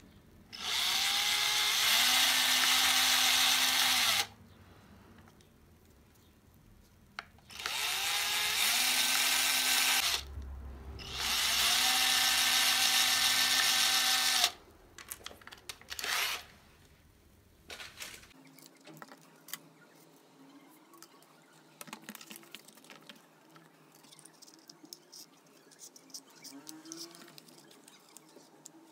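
Electric drill with a thin bit boring through a small wooden disc of glued ice-cream sticks, in three runs of a few seconds each, the motor whine rising in pitch as each run starts. A short final burst follows, then light clicks and taps of wooden pieces being handled.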